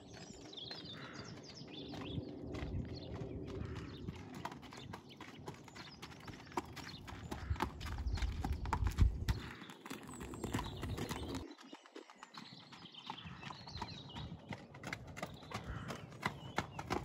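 Horse's hooves clip-clopping on a gravel lane as a young horse is led in hand at a walk, picking up to a trot near the end.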